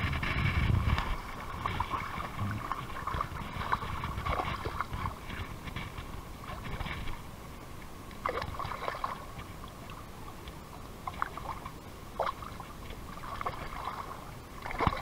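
Hooked bass splashing at the surface beside a kayak, with water sloshing and dripping as it is landed: several short splashes over a steady watery wash.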